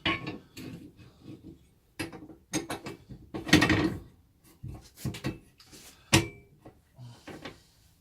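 Steel angle iron being handled and clamped into a metal-cutting bandsaw's vice: a series of metal knocks and clanks, a scrape a few seconds in, and a sharp ringing clack about six seconds in.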